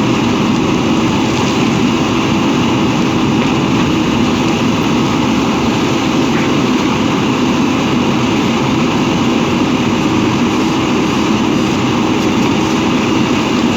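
A steady mechanical hum with a constant pitch and even level, from running engines or motors.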